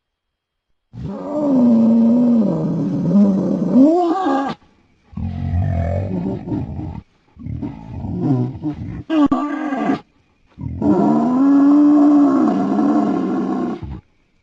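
Designed creature roars for an extinct Miotapirus, made from processed Hercules beetle recordings. There are four long calls whose pitch bends up and down, separated by short gaps; the first starts about a second in.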